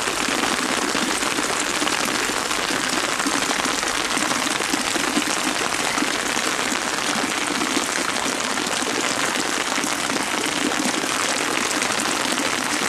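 Heavy rain falling steadily, an even, dense hiss of drops that keeps up without a break.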